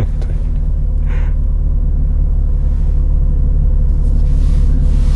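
BMW M4 CS's twin-turbo inline-six and road noise heard from inside the cabin while driving: a steady low rumble, with a higher hiss building up near the end.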